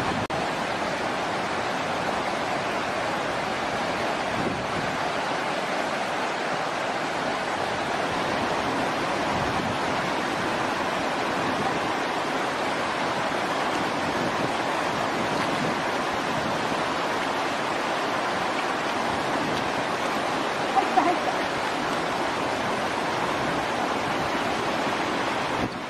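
Steady rushing noise of moving water, with a brief high squeak about three-quarters of the way through.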